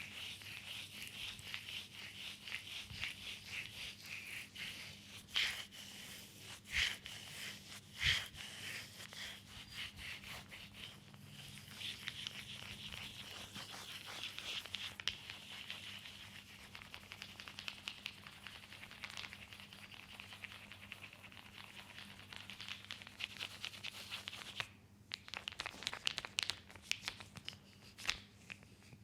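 Oiled hands rubbing and kneading skin in a leg massage: a dense, wet crackling rub with many small clicks and a few louder ones.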